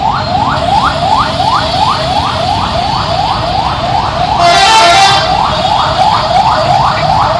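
Bus telolet horn, the musical multi-tone air horn of Indonesian buses, sounding a fast siren-like whoop that rises sharply in pitch about three times a second. A brief, louder, brassier horn blast cuts in about four and a half seconds in.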